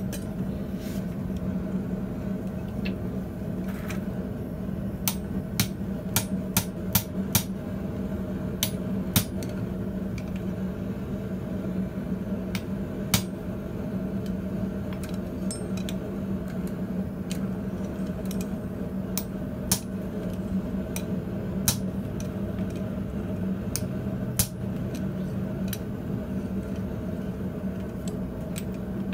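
Hand hammer blows on a red-hot ring of heavy-wall pipe held in tongs on a steel anvil: irregular sharp strikes, several in a quick run a few seconds in, then single blows spaced out, over a steady low hum.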